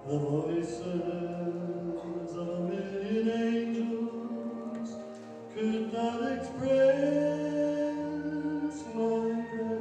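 Man singing a slow solo with long held notes into a handheld microphone, louder in the phrases from a little past halfway.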